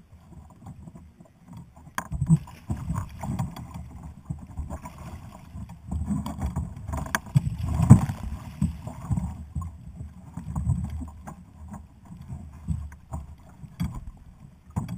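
Seawater splashing and sloshing around a plastic sit-on-top fishing kayak as a paddler in the water hauls himself back aboard, with scattered knocks against the hull. The biggest splash comes about eight seconds in, as he heaves himself up over the side.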